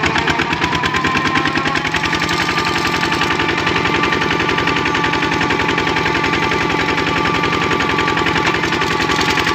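Kubota RT-series two-wheel walking tractor's single-cylinder diesel engine running steadily while pulling its cart, with a rapid, even exhaust chug. Its pitch picks up slightly in the first couple of seconds, then holds steady.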